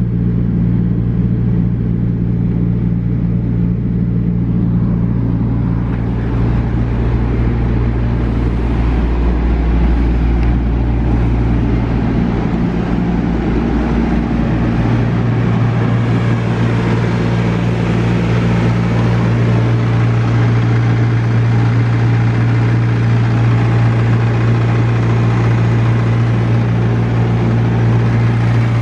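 A vehicle engine idling steadily. About halfway through the deepest rumble drops away while a steady hum carries on.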